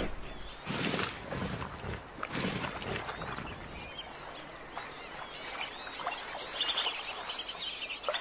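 Saltwater crocodile thrashing its prey in shallow water: two loud splashing bursts in the first three seconds. After that, birds chirping and whistling.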